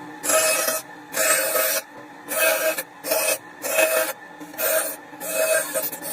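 Rhythmic rasping on softwood, about eight strokes in a row, each about half a second long with short gaps between them.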